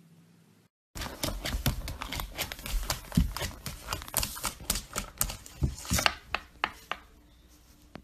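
A golden retriever puppy's claws clicking, tapping and scrabbling on a hardwood floor as it paws at a lemon wedge. It is a rapid, irregular run of sharp taps, several a second, starting about a second in and thinning out near the end.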